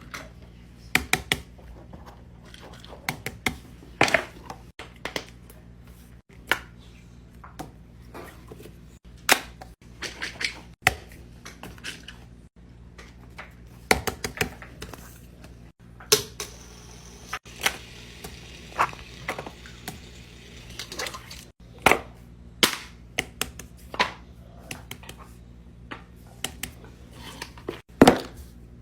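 Plastic fidget toys handled by hand, giving a run of sharp, irregular clicks and taps. A stretch of rustling runs from about 16 to 21 seconds in.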